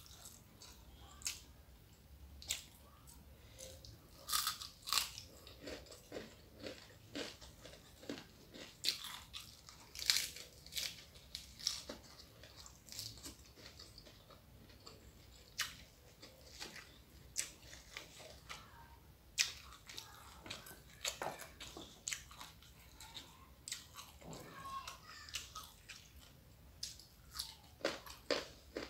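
Close-up chewing and biting of crisp food, a mouthful of rice with crunchy fried dried salted fish and raw vegetables, giving irregular sharp crunches and wet mouth sounds, some bites louder than others.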